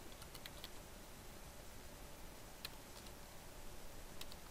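A few faint computer keyboard key clicks over a low steady hiss: a small cluster in the first second, a single click about halfway, and two close together near the end.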